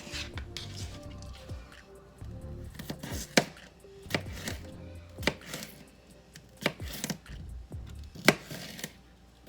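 Kitchen knife cutting bell pepper slices and striking a cutting board: about eight sharp chops at uneven intervals, the loudest near the end, over soft background music.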